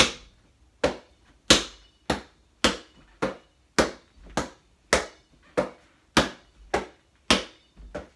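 Hands slapping a basketball as it is passed from hand to hand around the legs: a steady run of sharp slaps, a little under two a second.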